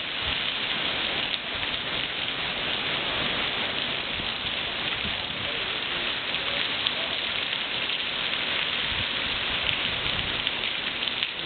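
Heavy monsoon downpour falling steadily on paving, shrubs and a swimming pool: a dense, even rush of rain without thunder.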